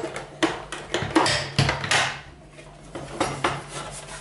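Casing of a Rollei P355 slide projector being worked loose by hand: a string of clicks, knocks and scrapes as the cover shifts against the chassis.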